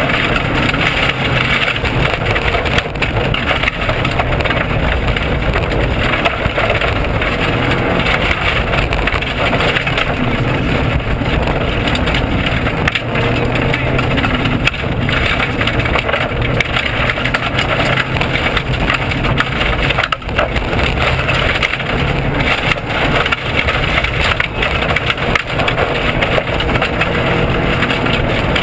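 Subaru WRX rally car driven hard on a gravel forest stage, heard from inside the cabin: the engine running at high revs under a constant clatter of stones and rattles against the underbody and bodywork.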